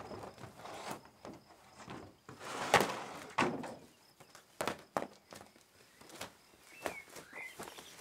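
Insulation boards knocking and scuffing as they are handled off a stack, with footsteps on gravel. The loudest is a knock with a rustle about three seconds in. A bird chirps a couple of times near the end.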